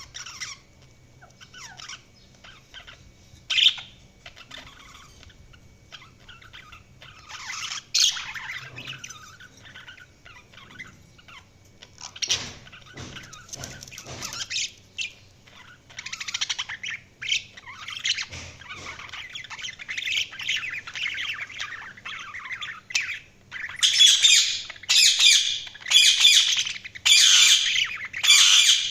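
Budgerigars chirping and chattering, sparse at first and then busier, breaking into loud, sharp squawks about once a second near the end.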